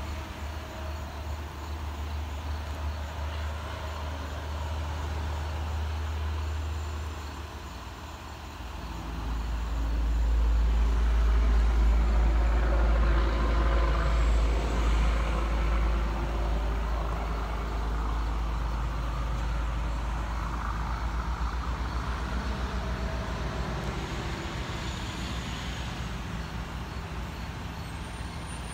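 Heavy truck's diesel engine running close by. About nine seconds in, its low rumble drops in pitch and grows louder, then eases off somewhat while it keeps running.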